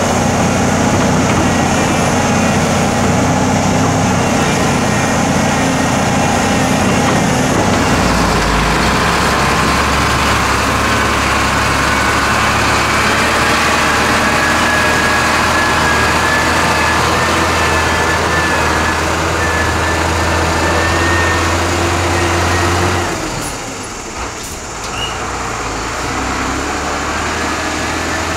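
Heavy diesel engines of a HOWO dump truck and a Hyundai crawler excavator running steadily and loudly as soil is loaded and the loaded truck drives off. The engine note shifts about eight seconds in, and the sound turns quieter a little after twenty seconds in.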